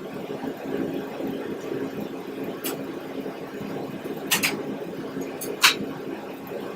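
Steady mechanical hum, as of a running fan or motor, with three short sharp clinks, the loudest about two-thirds of the way in.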